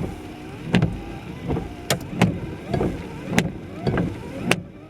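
Car windshield wipers running, with a knock about every half second as the blades sweep and a motor whine between the knocks. The owner calls it a rattle and is unsure whether a wiper is catching on something or it is something else.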